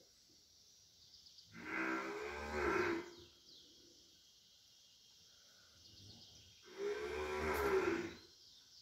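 A heifer in a difficult calving mooing twice, each a long drawn-out call of about a second and a half, the second about four seconds after the first. These are distress calls as she strains to give birth with help.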